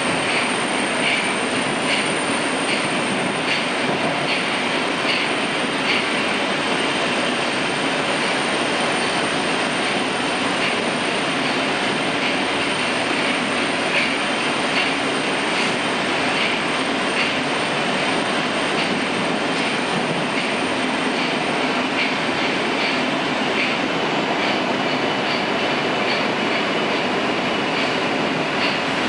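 Moscow Metro 81-760/761 'Oka' train running through a tunnel, heard from inside the carriage: a steady running noise of wheels on rails with light, regular clicks.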